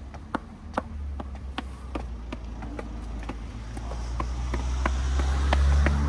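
Footsteps of a person walking on a hard path, about two steps a second, over the low rumble of a vehicle engine that grows louder toward the end.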